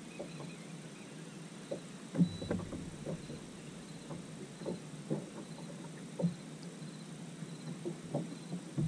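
Small waves lapping and slapping against a fibreglass bass boat's hull in irregular soft knocks, the strongest about two seconds in and again near six seconds. Faint insects chirp steadily in the background.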